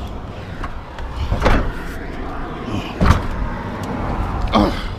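Scrap being heaved and shoved into a truck bed: scraping and clunks, with a loud knock about three seconds in.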